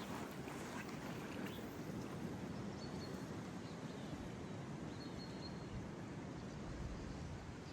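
Steady outdoor noise of a flowing river and wind, with a few faint, short, high chirps.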